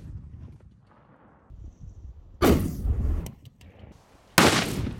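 Two loud explosions about two seconds apart, each trailing off over about a second: firecrackers bursting butane gas canisters.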